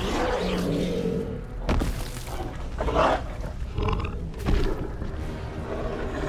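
Film dinosaur vocal effects: a few short, low animal calls over a continuous low rumble.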